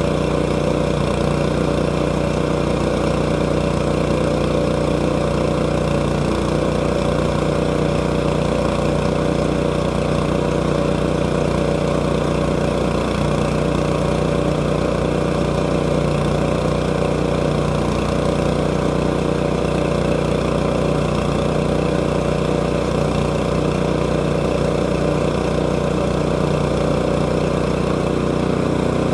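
Sawmill engine running steadily at a constant speed while the mill cuts through a log.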